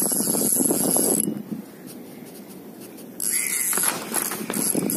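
Spinning reel cranked fast on a lure retrieve, its gears whirring with a thin high whine. It stops about a second in, then starts again about three seconds in.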